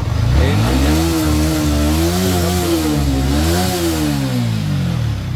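Yamaha R15 M's single-cylinder motorcycle engine being revved: it picks up right at the start, is blipped up and down a few times and drops back near the end. It runs without the magnet-side noise, after a broken starter-clutch spring was replaced.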